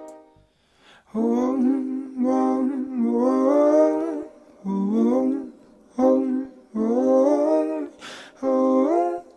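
Recorded song with a sung or hummed melody in short phrases, starting after about a second of near silence.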